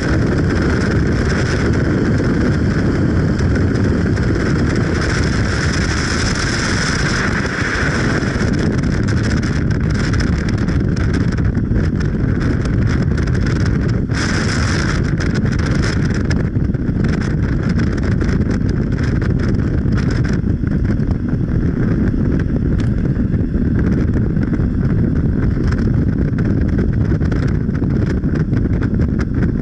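A moving vehicle's steady, loud low rumble, with wind buffeting the microphone.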